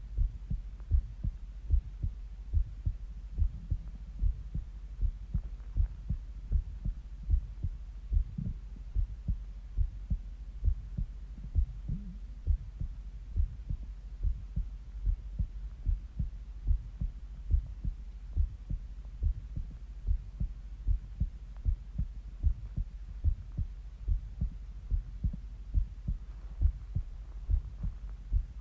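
A human heartbeat heard close up, beating in a steady rhythm of paired lub-dub thuds over a low hum.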